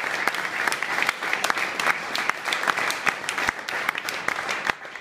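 Audience applauding: a dense run of hand claps that dies away right at the end.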